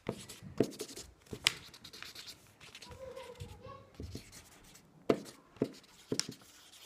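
Felt-tip highlighter scribbling on paper on a desk: scratchy strokes with sharp taps as the tip hits the page.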